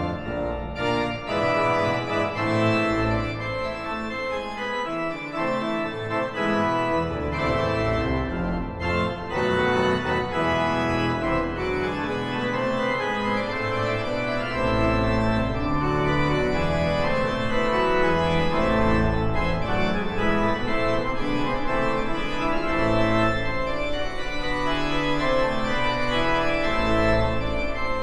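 Organ music: an organ playing slow, held chords over deep bass notes, growing a little louder in the second half.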